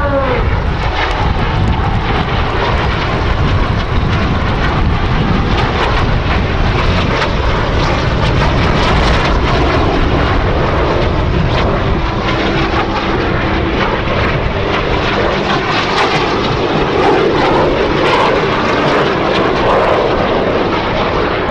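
Jet engines of Canadair CT-114 Tutor aircraft running: a loud, steady rushing noise of turbojets in flight.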